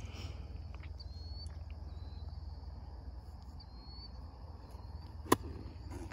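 A golf iron strikes a ball once with a sharp click about five seconds in, over a steady high chirring of insects.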